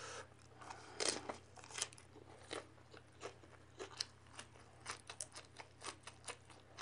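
A person chewing raw leafy vegetables, a run of faint, crisp crunches at irregular intervals.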